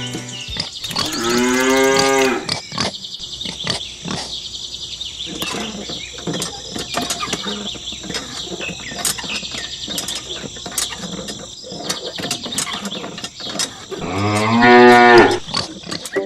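A cow mooing twice: a moo of a little over a second about a second in, and a louder one near the end. Between them runs a steady high-pitched background hiss with scattered clicks.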